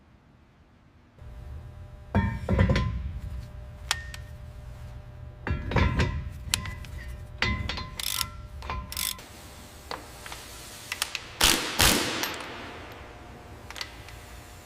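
Metal clanking and knocking over a low hum, with some strikes ringing on briefly, and a stretch of hissing about two thirds of the way through. The heaviest knocks come about two seconds in, around six seconds in, and near twelve seconds in.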